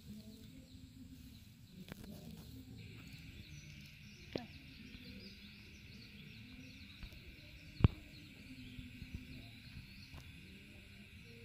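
Faint open-air ambience with a steady high chirring that sets in about three seconds in, broken by a few sharp clicks, the loudest about eight seconds in.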